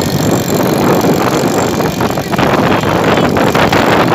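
Loud wind rush buffeting the phone microphone on a moving 50cc scooter, with the scooter's small engine running underneath.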